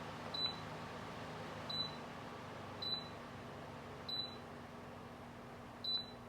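Five short, high electronic beeps, irregularly spaced, from a Dreo tower fan acknowledging button presses, over the fan's steady airflow hiss.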